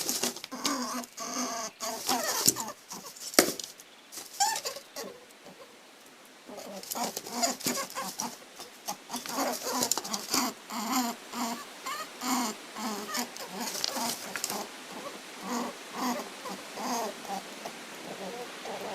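Rabbit making many short, squeaky calls in quick succession, with a quieter stretch about four to six seconds in.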